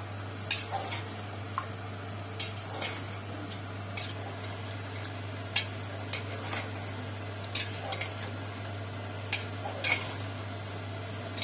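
Metal spoon stirring chicken pieces in a thick yogurt-and-spice mix inside a pressure cooker, with irregular clinks and scrapes of the spoon against the pot's side about once a second. A steady low hum runs underneath.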